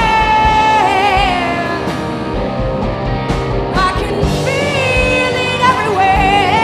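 Live blues-rock band playing: electric guitars, bass and drums under a held lead line that bends and wavers in pitch. The lead drops out briefly near the middle, then comes back.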